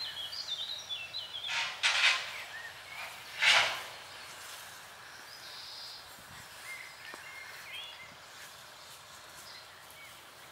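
Birds chirping in the background over a quiet outdoor ambience, with two short noisy swishes about two seconds in and again a second and a half later.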